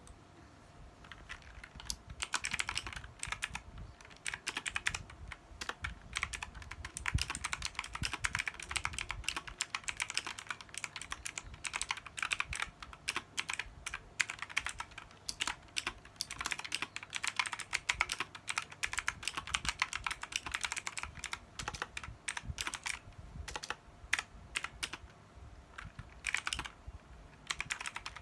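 Computer keyboard being typed on fast and continuously: a rapid, irregular stream of key clicks that starts about a second in, with a brief pause near the end.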